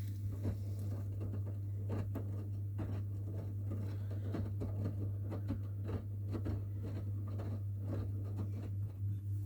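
Washing machines running a wash: a steady low hum with irregular soft knocks and pattering of laundry tumbling in the drum.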